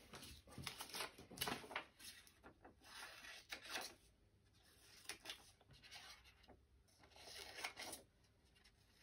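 Faint snipping of scissors cutting through coloured craft paper, in several short runs of cuts with brief pauses between.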